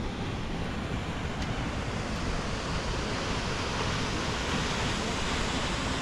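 Steady rushing noise, an even hiss that grows a little brighter and louder about two seconds in.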